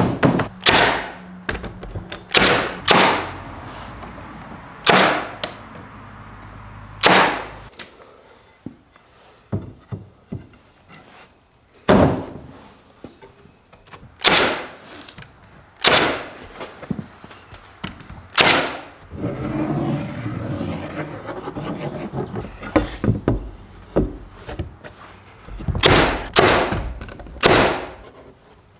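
Milwaukee cordless nailer firing nails through wood strips into a plywood panel: a dozen or so sharp shots at irregular intervals, several in quick succession near the end.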